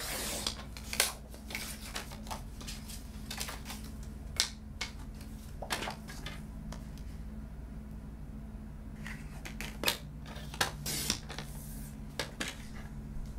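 Sliding-blade paper trimmer cutting cardstock squares: scattered clicks, taps and scrapes of the blade carriage, trimmer parts and paper being placed and pulled away. A steady low hum runs underneath.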